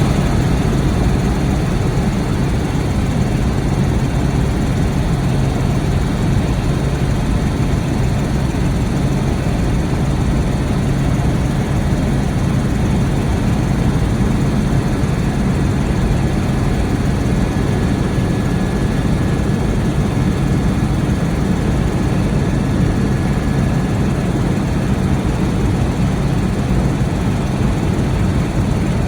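Helicopter in flight, heard from on board: a steady, loud drone of engine and rotor noise, heaviest in the low end.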